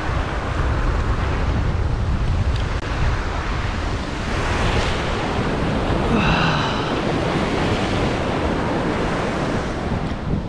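Ocean surf breaking and washing over lava rocks, a continuous rushing swell that surges about four to five seconds in, with wind buffeting the microphone.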